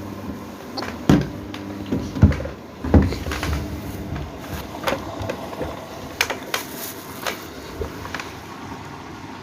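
Washing machine running: a steady low hum broken by dull thumps and clicks, the loudest about one, two and three seconds in.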